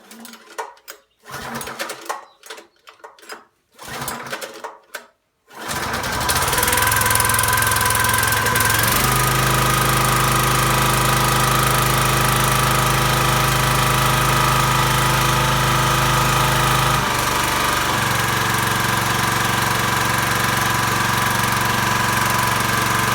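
Small engine of a towable ATV backhoe being cranked in short irregular bursts, then catching and running steadily on its first start of the year with the choke on. Its running note shifts twice as it settles.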